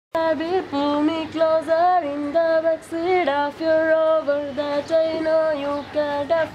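A young voice singing unaccompanied, breaking in abruptly after silence and holding long, steady notes.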